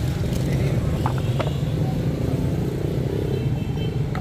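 Steady low rumble of road traffic, with two light knocks about a second in.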